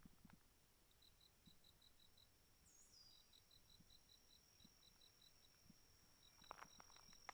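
Faint high-pitched insect chirping, a steady run of about six pulses a second. About three seconds in, a long, steady high tone begins with a short downward slide. A few soft footsteps come near the end.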